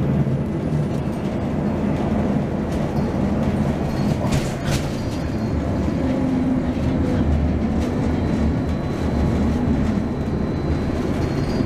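Cabin of a 2005 Neoplan AN460LF dual-mode bus underway on diesel power, its Detroit Diesel Series 60 engine and the road giving a steady low drone. A couple of sharp rattles come about four seconds in.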